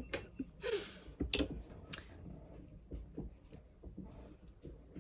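Light metallic clicks and taps of needle-nose pliers working at a boat galley's gas stove burner, with two sharper clicks in the middle. The burner's thermocouple has dropped and is being pulled back up.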